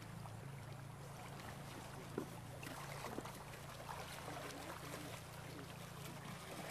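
Shallow river water splashing and trickling around elephants and a person wading in it, with one sharp knock about two seconds in.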